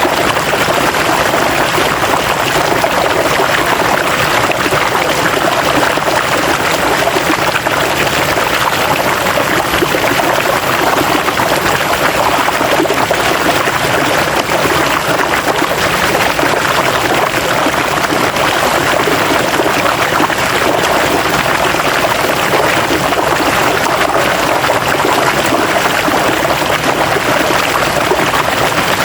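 River water flowing steadily over rocks, a continuous rushing and babbling with no breaks.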